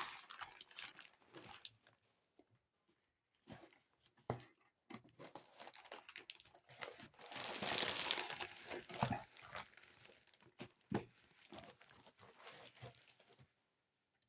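Parcel packaging being handled and torn open by hand: scattered crinkling rustles and clicks, with a longer, louder stretch of tearing about halfway through.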